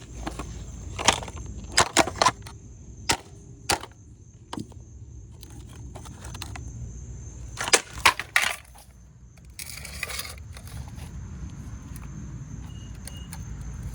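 A rock striking a Roomba robot vacuum's opened plastic housing: a run of sharp knocks and cracks, about ten in all, in two quick groups, with a short scraping rattle near the end.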